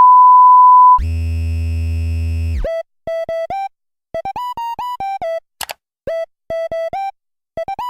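Electronic synth music. It opens with a loud one-second steady beep, then a low buzzing synth chord. After that comes a bouncy melody of short bleeping synth notes with brief gaps between phrases.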